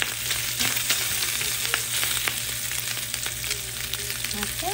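Braised pork spare ribs sizzling in hot oil in a frying pan on high heat, with scattered crackles and pops, as the cooked meat is browned crisp. A steady low hum runs underneath.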